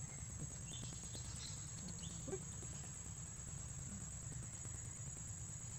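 Insects chirring steadily at a high pitch over a constant low outdoor rumble, with a few faint short chirps or calls about one and two seconds in.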